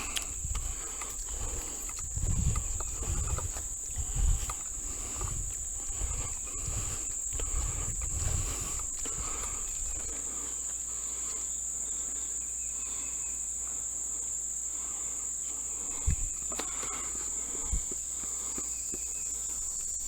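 Steady, high-pitched insect chorus running without a break. Low thumps come through during the first several seconds, and two sharp knocks about two seconds apart come near the end.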